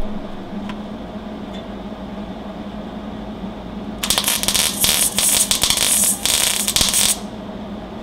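MIG welder arc crackling and sputtering in one run of about three seconds, starting about halfway in, as it fills a small hole in thin engine sheet metal with the welder turned way down. A steady low hum runs underneath.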